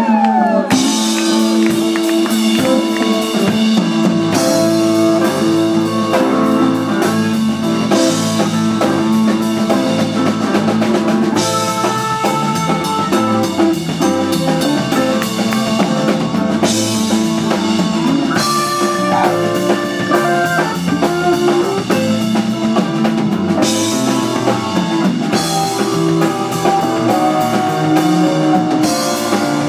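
Live rock band playing an instrumental: a drum kit with cymbals, electric bass, an electric guitar, piano and a Hammond B-3 organ.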